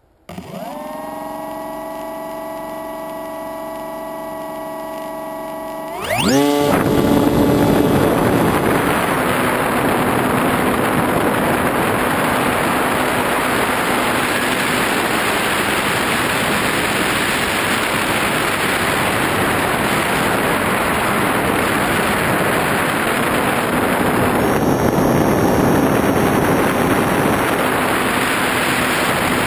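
Model airplane's motor and propeller heard from a camera mounted on the plane. It runs with a steady whine at low throttle. About six seconds in, the pitch sweeps sharply up to full throttle and then gives way to a loud, steady rush of propeller wash and wind over the microphone as the plane flies.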